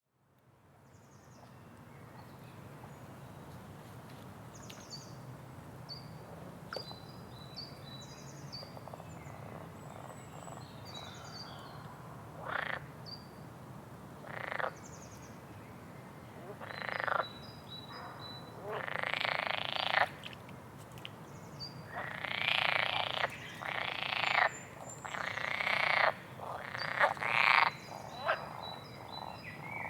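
Rainforest frogs calling: loud, short croaking calls that come more and more often from about halfway on, over faint high chirps and a steady low hum. The sound fades in at the start.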